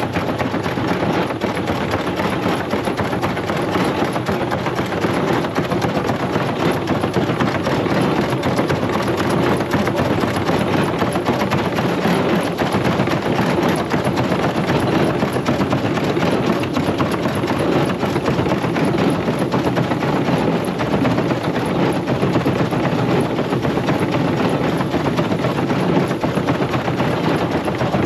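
A small wheat threshing machine running steadily as wheat is fed into its hopper: a continuous, even mechanical rattle and clatter.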